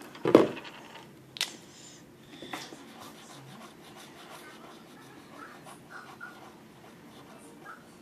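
Three knocks about a second apart, the first the loudest, then faint scratching and rubbing of drawing on paper.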